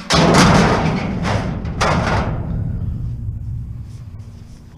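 Scrap metal thrown into a metal scrap bin: a loud crash and clatter right at the start, a second crash about two seconds in, each ringing and dying away slowly.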